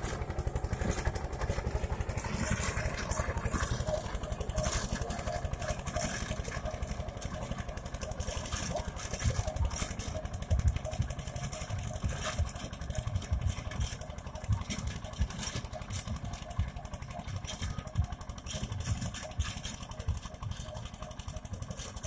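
Eicher tractor's diesel engine running hard under full load, pulling a 9-foot rotavator through dry soil, with a fast low thudding and the rotavator's blades churning the ground.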